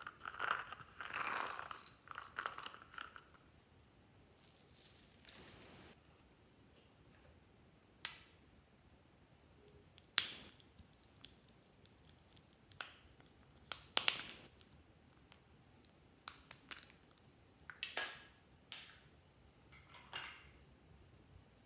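Small plastic toy cases handled and snapped open and shut: rustling and scraping for the first few seconds, then a series of sharp plastic clicks a second or two apart.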